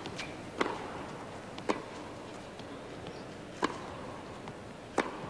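Tennis rackets striking the ball in a baseline rally: four sharp hits spaced about one to two seconds apart, over a steady low background hum.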